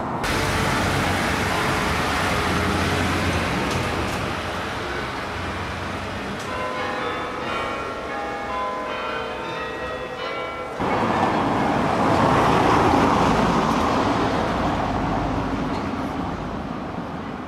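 Bells ringing from a cathedral tower, several different notes sounding in quick succession, as from a carillon, over street noise. About eleven seconds in, the sound cuts to a classic car's engine as it drives away, loudest a second or two later and then fading.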